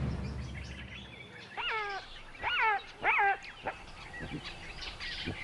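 Three short yelping animal calls, each dropping sharply in pitch, coming in quick succession about a second and a half in.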